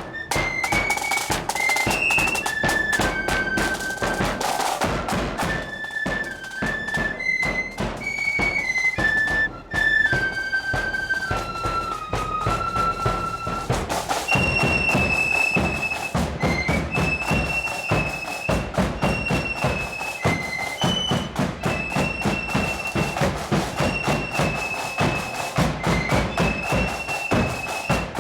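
Marching flute band playing: flutes carry a high, stepping melody over steady bass and snare drum beats.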